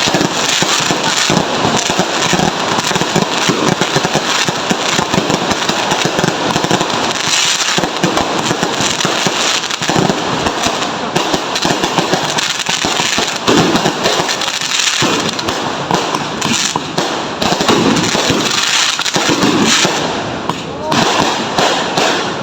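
Fireworks and firecrackers going off in a dense, continuous barrage of rapid crackling and popping.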